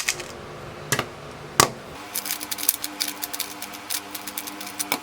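3x3 speedcube being turned by hand: a few separate clicks, then rapid plastic clicking of quick layer turns from about two seconds in.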